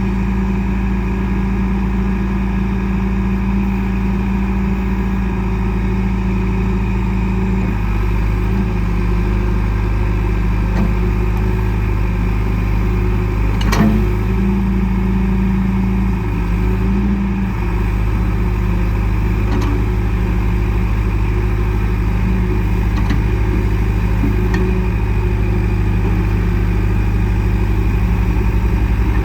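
John Deere 310SG backhoe loader's diesel engine running steadily. Its tone shifts slightly about a quarter of the way in and again a little past halfway, and there is one sharp click near the middle.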